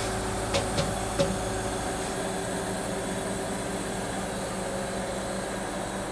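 Three short clicks, about half a second to a second in, as the manure tanker's automatic sampling unit presses the lid onto the sample pot to seal it. Under them is a steady mechanical drone from the running truck and tanker machinery.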